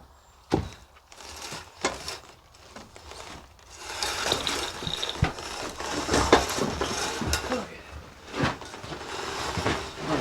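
Hand chain block (chain hoist) lifting a heavy furnace: a few separate metal knocks, then a dense rattle of chain and ratcheting clicks from about four seconds in.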